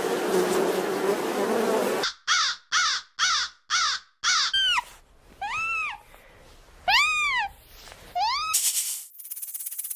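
Animal calls: after a burst of loud, rough noise, five short calls come about two a second, then several longer calls that each rise and fall in pitch. Near the end a high, steady hiss takes over.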